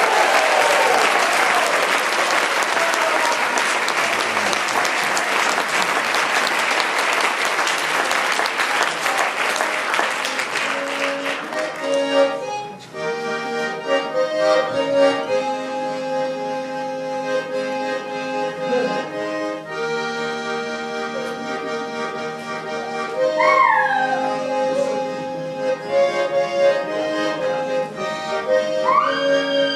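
Audience applause for about the first twelve seconds, then a diatonic button accordion playing a tune with a steady bellows-driven chordal accompaniment.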